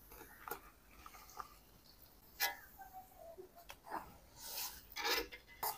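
Scattered scrapes and clinks of a long metal spatula against a steel karahi as raw chicken pieces are stirred into hot ghee and onions.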